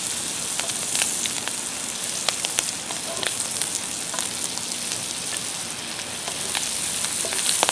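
Shrimp, corn, peas and pineapple frying in butter and pineapple juice, a steady sizzle with scattered sharp ticks as the pan is stirred.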